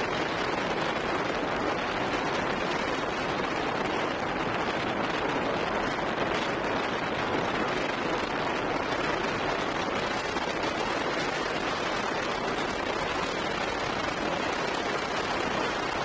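Steady rush of wind noise on an action camera's built-in microphone as a road bike rides a paved road at high speed, with no change in level.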